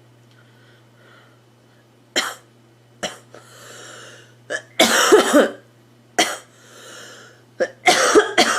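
A girl coughing in repeated fits starting about two seconds in: single sharp coughs and runs of several in quick succession, with breaths drawn in between the fits.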